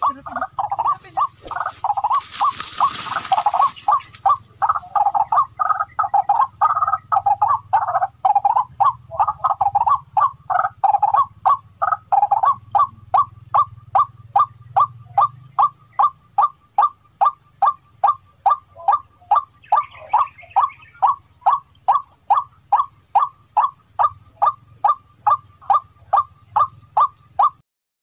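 White-breasted waterhen calling: a long, monotonous run of short, even notes at about two a second, fuller and louder in the first half and thinning to single notes later. A brief hiss sounds about two to three seconds in.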